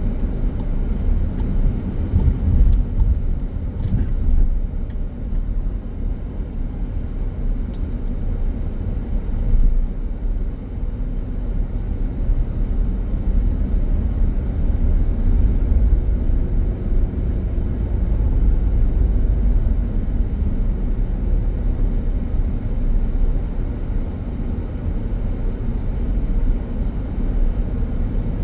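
A car driving at town speed, heard from inside the cabin: a steady low rumble of engine and tyre noise.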